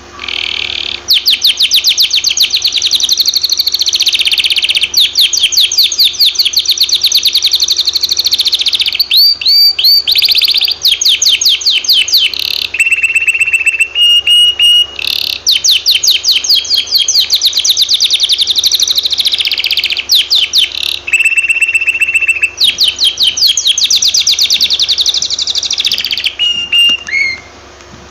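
Canary singing a long, loud song of rapid trills broken by short pauses, with several held steady whistled notes among the trills; the song stops shortly before the end.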